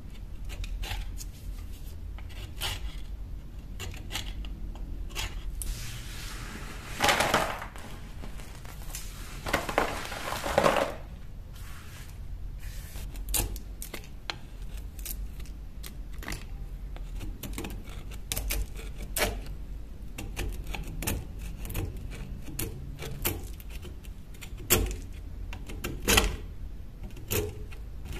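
Steel chisel scraping and chipping crusted rust and dirt off an old corroded knife blade on a hard surface: a run of short metal scrapes and clicks, with two longer, louder scrapes about seven and ten seconds in.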